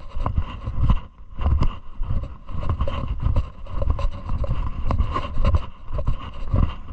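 A hiker's footsteps on a mountain path, about two a second, with wind rumbling on the camera microphone.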